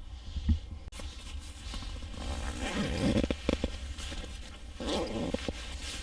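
A zipper being pulled in two spells, with fabric rustling around it.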